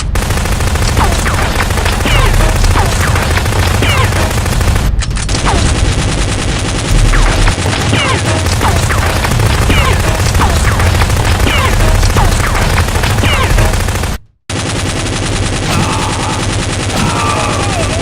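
Gunfire sound effects: dense, continuous automatic-weapon fire, briefly cut off about five seconds in and again for an instant near the end.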